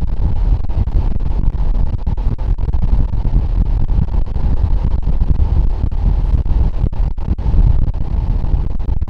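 Wind buffeting the microphone: a loud, uneven low rumble with brief dropouts, starting suddenly at the start.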